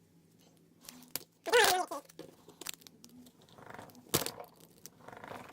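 A cat meows once, a short call falling in pitch, among light clicks and rustling from a padlock and picks being handled, with one sharper click near the end.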